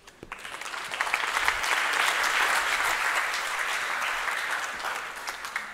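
Audience applauding, building up over the first second, holding steady, then slowly thinning out near the end.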